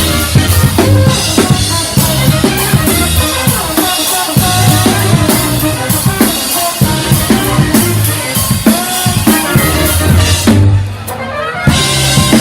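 A live brass band playing with a drum kit, bass drum and snare driving a steady beat under the horns. Near the end the band stops short for about a second, then comes back in.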